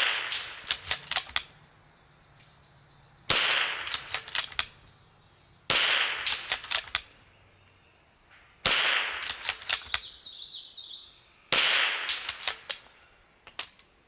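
Five shots from a .22 LR rimfire rifle firing RWS R50 match ammunition, about three seconds apart. Each is a sharp report trailed by a quick run of fading ticks.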